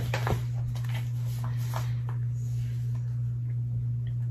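Steady low electrical hum with no change in pitch, with a few faint soft clicks about one and a half to two seconds in.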